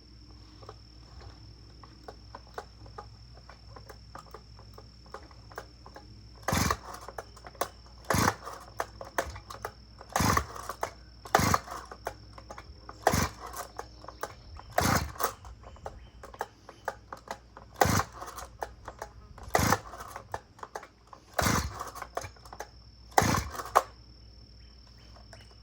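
Homelite 340 chainsaw's recoil starter pulled about ten times, a short rasp of the rope every couple of seconds starting about six seconds in. The engine never catches: it is hard to start without a choke.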